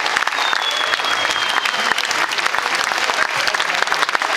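Concert crowd applauding and cheering, with one long whistle from the audience about half a second in.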